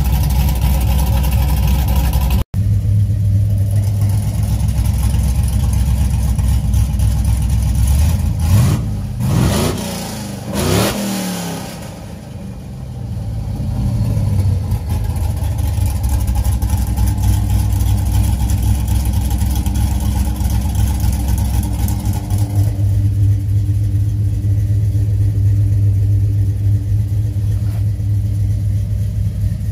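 LSX V8 engine of a 1954 Chevy pickup idling steadily through its exhaust. It is revved up and back down a couple of times between about eight and twelve seconds in, then settles back to idle.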